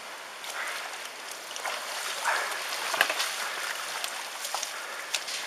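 Tsunami seawater flowing fast down a street: a steady rush with splashes and gurgles, and a sharp knock about three seconds in.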